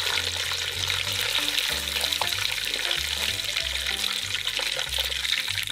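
Hot oil sizzling and crackling around breaded chicken drumsticks in a deep-frying pot, under background music with a repeating low bass line.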